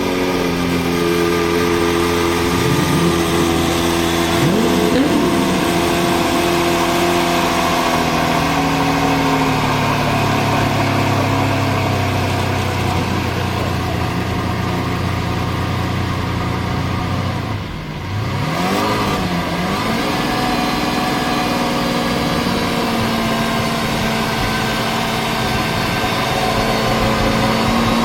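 Lamborghini Veneno's V12 engine running steadily at held revs, its pitch slowly easing down. About two-thirds of the way in it dips briefly and its pitch quickly rises and falls, then it settles at a steady pitch.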